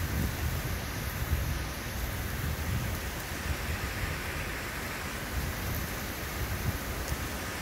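Heavy rain falling steadily, a dense even hiss, with an uneven low rumble underneath.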